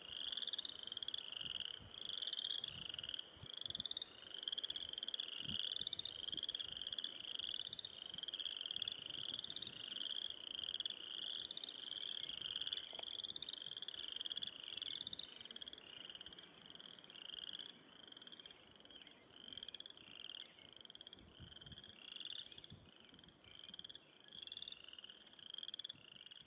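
Frogs calling in chorus: a steady run of short, high peeping calls, about two a second, thinning out and getting quieter in the second half.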